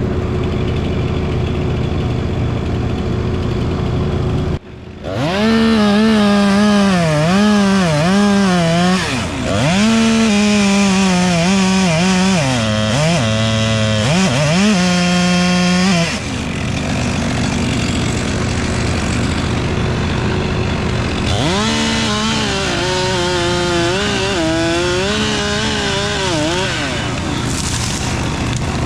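Two-stroke chainsaw cutting wood, its engine note dipping and climbing again and again as the chain loads in the cut, in two long spells with a pause between. Under it an engine runs steadily.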